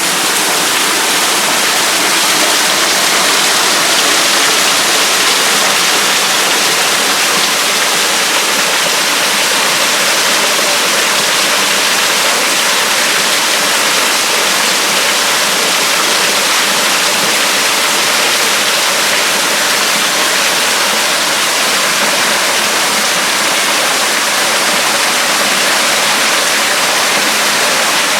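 Waterfall pouring onto rocks, a loud, steady rush of falling water with no change throughout.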